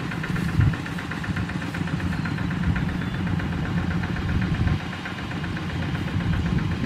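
Single-cylinder Kubota diesel engine of a two-wheel walking tractor running at idle with a rapid, even knocking chug, a little quieter from about five seconds in.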